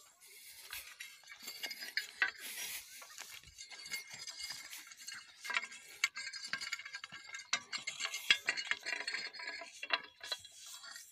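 Dry grass, fallen leaves and gravelly soil crackling and scraping as they are disturbed, a steady run of irregular small clicks and rustles.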